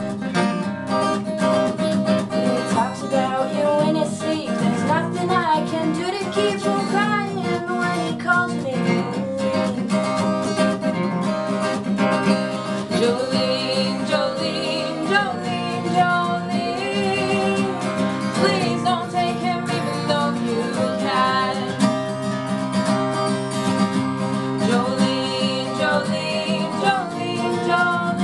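Live acoustic guitar accompanying two women singing a song together.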